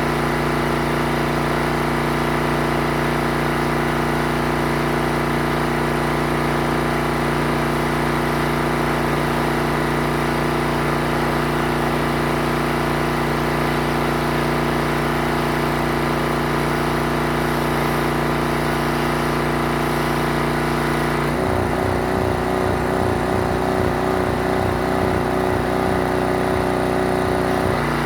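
Pressure washer engine running steadily. About 21 seconds in, its sound turns rougher and pulsing for several seconds, then settles back to the steady run at the end.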